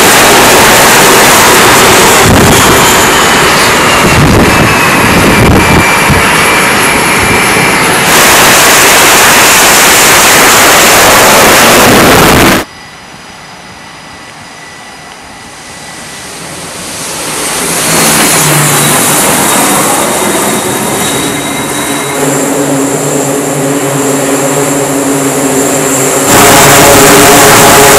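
Loud jet engine noise from an F/A-18 on the carrier's catapult cuts off suddenly partway through. A quieter stretch then swells as a C-2 Greyhound's twin turboprops come closer. Near the end the sound jumps back to loud with a steady propeller drone made of several even tones.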